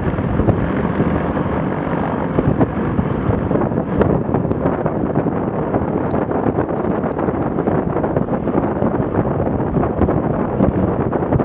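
Zenith STOL CH 701 light aircraft's engine and propeller running steadily as the plane moves across sand, heavily buffeted by wind on an onboard microphone.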